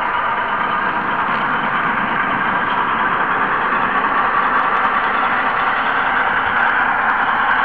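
N-scale model train running along the track, heard from the camera car it carries: a steady, even rushing noise with no clear rhythm.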